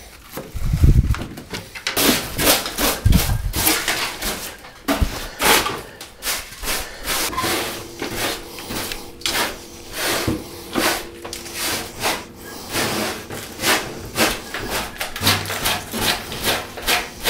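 Straw broom sweeping rust flakes and debris across the bare, rusted steel floor of a 1988 Ford Bronco's cargo area, in quick repeated strokes about two a second. A few low thumps come in the first few seconds.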